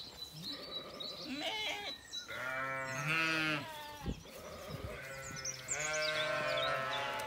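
Zwartbles sheep bleating: two long bleats, one about two and a half seconds in and another near the end, with shorter calls between.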